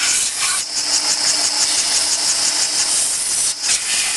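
Cylinder boring bar running and cutting a two-stroke cylinder bore: a steady motor hum under a high, evenly pulsing scraping hiss from the cutter, dipping briefly twice.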